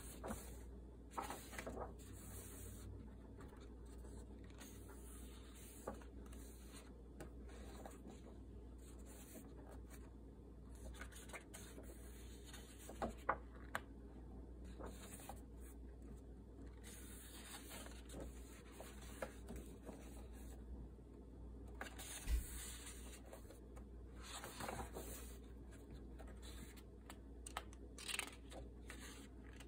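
Thick pages of a coloring book being turned and smoothed flat by hand: soft paper rustles and rubs every few seconds, with a few sharp taps.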